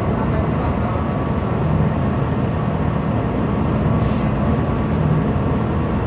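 Steady low rumble aboard a ship, with wind noise over it.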